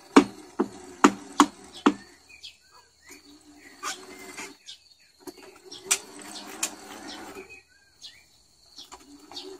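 Drive motors of a tracked remote-control lawn mower whining in short bursts as it is driven and turned on paving, starting and stopping four times, with several sharp clacks during the first two seconds.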